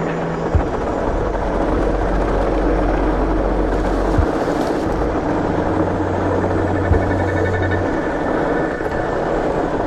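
Wind rushing over the microphone and fat tyres rolling on packed snow as a fat bike speeds downhill, with a few knocks as it runs over bumps.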